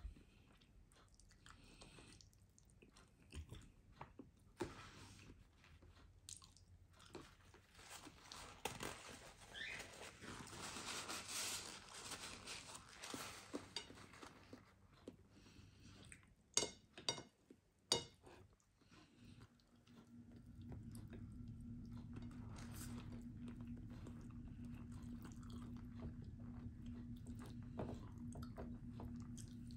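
Close-up chewing and crunching of someone eating baked chicken and rice by hand, with scattered small clicks and two sharp clicks just past the middle. A steady low hum comes on about two-thirds of the way through and carries on underneath.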